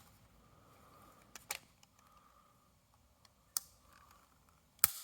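A few small, sharp plastic clicks and taps as the black plastic sensing chamber of an optical smoke detector is handled and prised at, the sharpest one near the end, over a faint steady hum.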